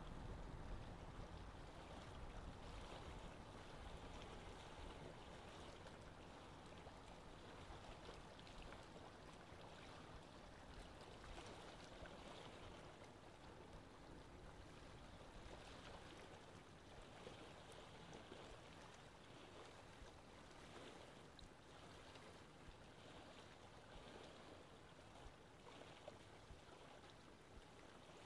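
Faint, steady trickling and splashing of water from an aquarium filter's outflow.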